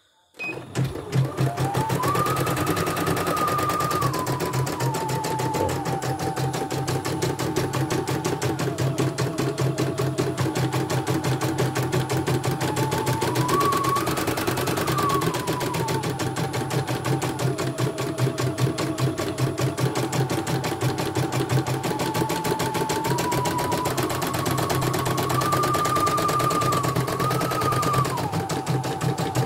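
CNY E900 embroidery machine stitching out a design: rapid, even clatter of the needle bar with a motor whine that steps up and down in pitch as the speed changes, starting about a second in.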